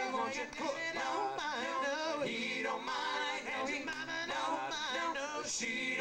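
Male vocal group singing in close harmony through microphones, several voices together.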